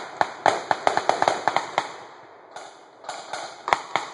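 Gunfire from a mock firefight, most likely rifles firing blanks: a rapid, irregular string of sharp cracks at a few per second, a lull of under a second, then another cluster of shots.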